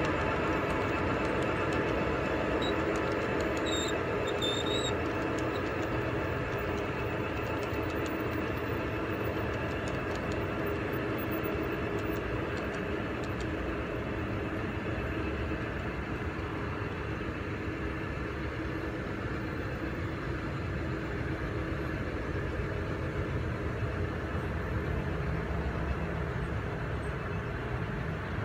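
Large-scale model freight train running on garden railway track: a steady rolling rumble with a constant hum, easing slightly as the cars move away.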